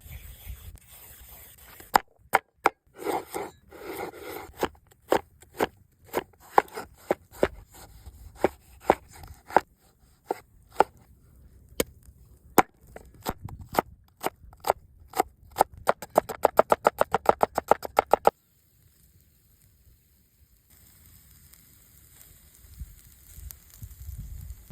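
A series of sharp knocks, spaced irregularly at first, then a fast even run of about eight a second that stops suddenly, leaving only a faint hiss.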